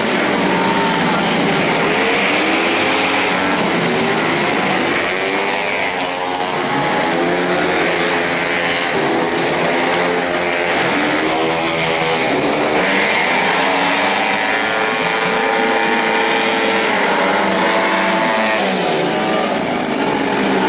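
Several small racing motorcycles (scooters and underbone bikes) running hard at high revs, their engine notes overlapping and rising and falling again and again as they accelerate and sweep past one after another.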